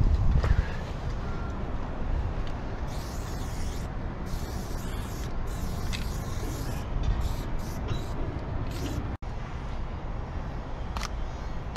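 Aerosol spray-paint can hissing in a run of short bursts as a tag is sprayed onto a freight car's steel side, over a low rumble.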